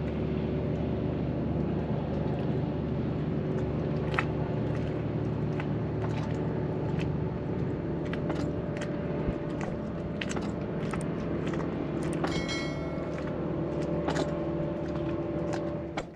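A steady low mechanical hum with a few faint steady tones in it, dotted with scattered sharp clicks and light knocks. It stops abruptly at the very end.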